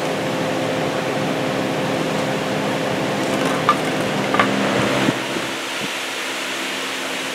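Steady mechanical hum of shop refrigeration or ventilation with a low droning tone, thinning out about five seconds in. A few light taps partway through as the kitten knocks the empty plastic soda bottle about.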